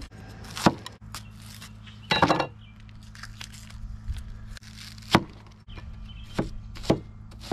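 Clinks and knocks of cooking utensils and containers while meatball ingredients are prepared: about five sharp separate hits and a short rattling cluster about two seconds in, over a low steady hum.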